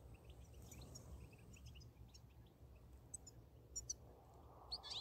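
Faint twittering of European goldfinches: scattered short high chirps, with a couple of louder calls near the end.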